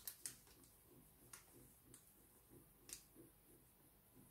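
Near silence: room tone with a few faint, irregularly spaced clicks from a paper receipt and a plastic tub being handled.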